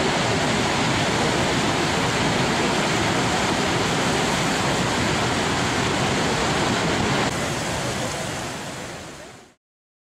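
Niagara's Horseshoe Falls: the steady rush of a huge volume of water going over the brink, fading out near the end.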